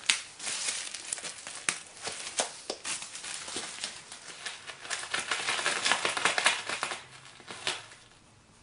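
Dry crackling and crinkling as a cat rolls and rubs on a floor strewn with dried catnip, the flakes crushing under its body. The sound dies down about seven seconds in as the cat settles.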